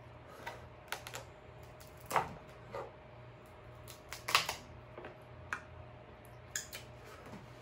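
King crab leg shell clicking and crackling as the meat is pried and pulled out of it by hand, in scattered short snaps, the loudest about two seconds in and again a little past four seconds.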